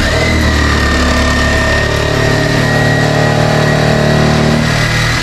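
Electric power tool motor running steadily for about five seconds, a high whine over a low hum, starting and cutting off abruptly.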